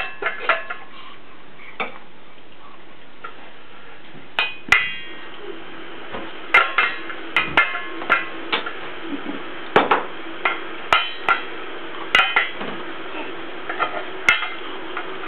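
Metal saucepan lids being banged, each hit a sharp clang with a brief metallic ring. The hits are irregular: a few scattered ones in the first five seconds, then a clang every half second or so from about six and a half seconds in.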